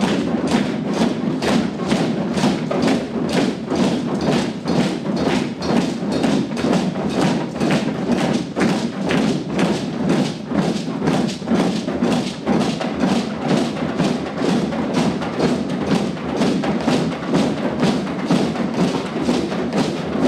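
A drum circle of many hand drums and bass drums playing together in a steady beat, about two strokes a second.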